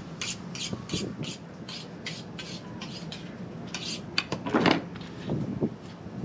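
Fillet knife being honed on a steel: a quick, even run of short metallic scraping strokes, about three a second, then a few louder knocks near the end.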